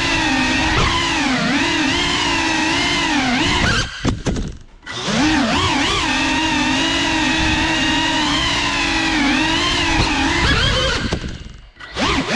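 GEPRC CineLog35 cinewhoop's brushless motors and propellers whining with a wavering pitch as the quad flies. The throttle is cut twice, about four seconds in and near the end: the whine drops away almost to nothing, then climbs back as the motors spool up.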